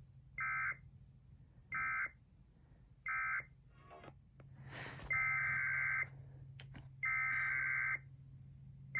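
Emergency Alert System digital data bursts, a warbling electronic screech. First come three short bursts about a second and a half apart, the end-of-message code closing the previous warning. After a click and a pause, two longer bursts of about a second each follow, with a third starting at the end: the header of the next alert. A low steady hum lies under them.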